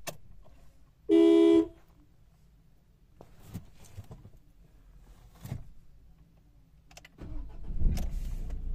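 A single short car horn beep about a second in. Near the end an engine starts and settles into a steady low run.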